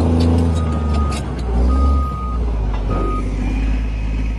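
Heavy diesel engine of a Caterpillar crawler bulldozer running steadily while its reversing alarm sounds three long, evenly spaced beeps, the last ending about three seconds in. A few sharp knocks come in the first second.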